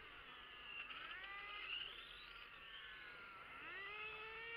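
1/5-scale radio-controlled racing motorcycles on the track: a faint motor whine that rises in pitch as the bikes accelerate, about a second in and again near the end.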